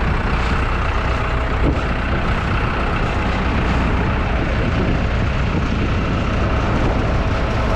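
Tractor engine running steadily, driving a mobile maize grain dryer through its PTO, with a constant machinery drone.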